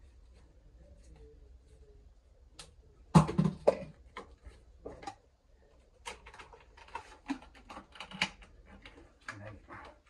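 Plastic clatter and knocks about three seconds in, then a run of quick clicks as a McAlpine flexible WC pan connector's corrugated plastic sleeve is handled and pushed back together.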